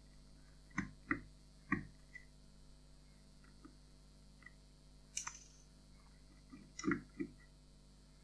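Small screwdriver clicking and tapping against the screws and plastic earcup of a headphone being unscrewed: three sharp clicks about a second in, then a few more about five to seven seconds in.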